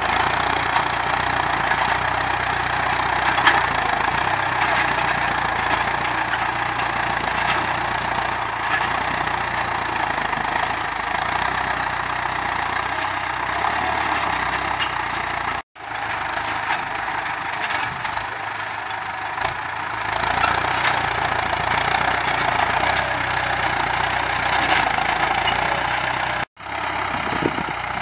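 Ford 6610 tractor's four-cylinder diesel engine running steadily while pulling a disc plough through dry, cloddy soil. The sound breaks off for an instant twice, about halfway through and near the end.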